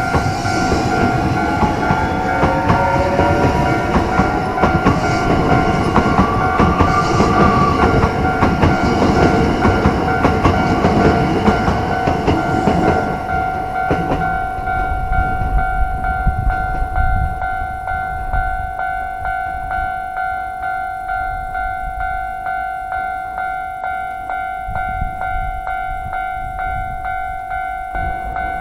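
Railway level-crossing alarm ringing in a steady repeating rhythm, while an electric train runs over the crossing. The train's running noise and a rising motor whine die away about halfway through, leaving the crossing bell alone.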